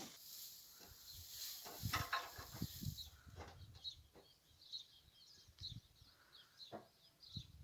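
Small birds chirping in short, repeated high calls from a few seconds in, faint against a rustle at the start and a few soft low thumps.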